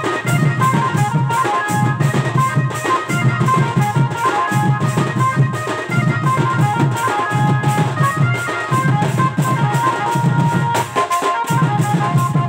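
Folk band of barrel drums played with sticks and hands in a fast, steady, dense rhythm, with a melody of held, changing notes running above the drumming.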